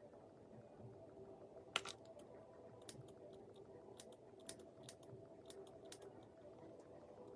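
Small scissors snipping at false eyelashes to trim them: faint, sharp clicks, the loudest about two seconds in, followed by a dozen or so lighter snips.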